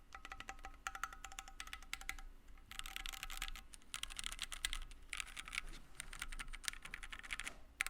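Keychron Q1 gasket-mounted mechanical keyboard with an aluminium plate and stock-lubed Gateron Phantom Red linear switches, typed on in quick bursts with brief pauses. A faint ring hangs under the keystrokes, the case ping and hollowness that the reviewer notes in the stock keyboard.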